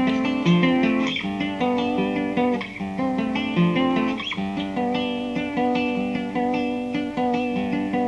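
Instrumental intro of a filk song: acoustic plucked strings picking a flowing run of notes over chords.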